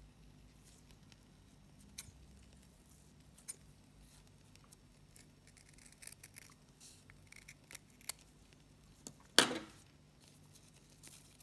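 Scissors snipping through folded satin ribbon, cutting it into triangles: scattered small snips and clicks, with one much louder clack about nine seconds in.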